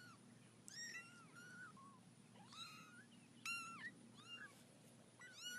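A cat meowing faintly: a series of about six short, high-pitched mews, each rising and then falling in pitch.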